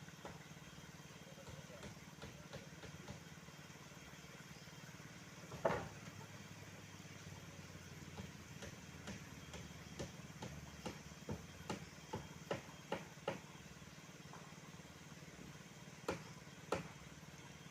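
A faint engine running with a steady low hum. A single loud knock comes about six seconds in, a quick run of sharp knocks or clanks follows from about eight to thirteen seconds, and two more come near the end.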